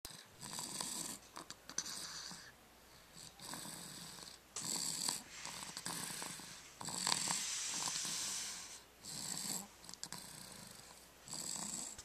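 Sleeping baby snoring: a run of noisy breaths in and out, each lasting about half a second to two seconds, with short pauses between them.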